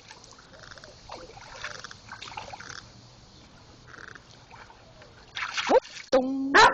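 Dog pawing and digging in a water barrel, the water splashing and sloshing softly. Near the end come two loud short bursts, the second a held pitched cry.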